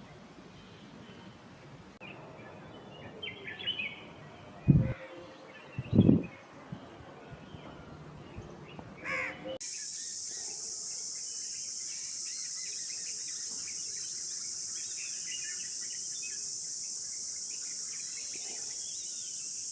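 Scattered bird calls with two loud, short low thumps about five and six seconds in. Then, after an abrupt change about halfway through, a steady, high-pitched insect drone.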